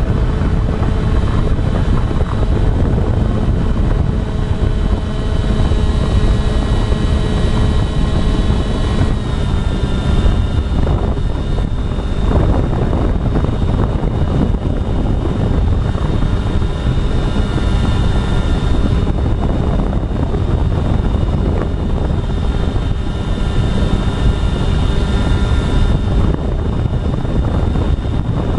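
Electric motors and propellers of an FPV radio-controlled model aircraft whining steadily in several tones over a heavy low rumble; the pitch of the whine shifts about nine seconds in.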